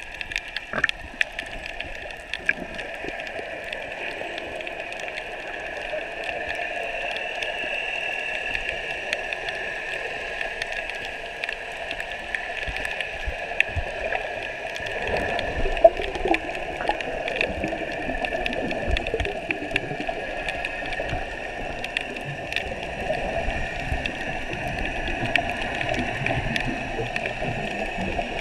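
Underwater sound picked up through an action camera's waterproof housing just below the surface: a continuous wash of moving water and wave surge, with many small sharp clicks and crackles scattered through it.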